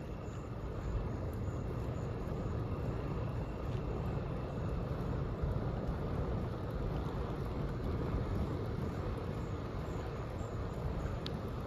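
Steady rumble of wind on a body-worn camera's microphone and tyres rolling on pavement while riding a bicycle, with one sharp click near the end.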